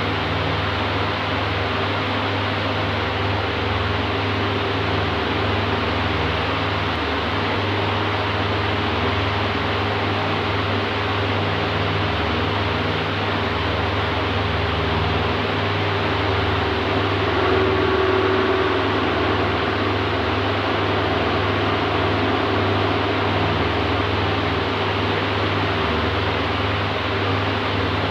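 Oscillating electric fan running steadily: an even whoosh of moving air over a low motor hum, swelling slightly about two-thirds of the way through.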